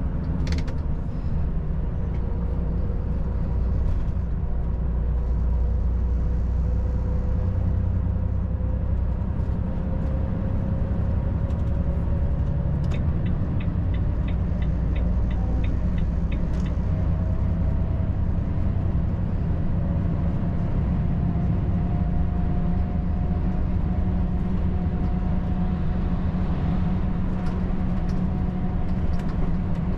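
Volvo FH 540 truck's six-cylinder diesel running on the highway: a steady low engine and road rumble, with a faint whine slowly rising in pitch. A quick run of regular ticks comes for a few seconds midway.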